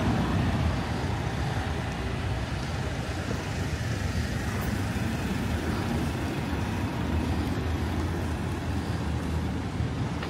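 Steady city street noise from passing road traffic, with an even low hum and no distinct events.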